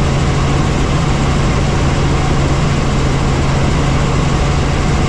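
Helicopter in flight: a loud, steady drone of engine and rotors with a constant low hum.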